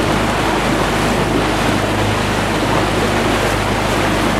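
Wind buffeting the microphone and water rushing past a small motor launch, over the steady low hum of its outboard engine.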